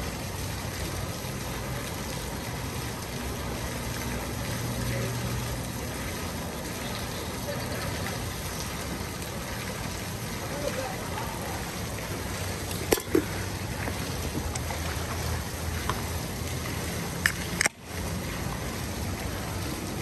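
Fountain jets splashing steadily into the basin, with a low hum underneath. A couple of sharp clicks come about thirteen seconds in and again about four seconds later.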